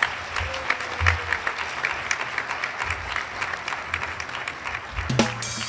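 Audience applauding, a dense steady patter of many hands clapping, with music starting up just before the end.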